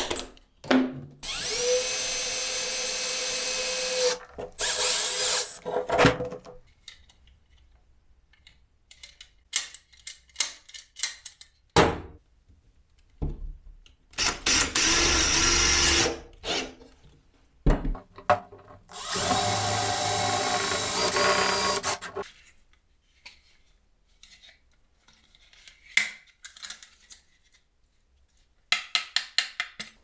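Cordless drill drilling into a metal door-hinge leaf in four runs of about one to three seconds each. Clicks and knocks of the metal being handled fall between the runs.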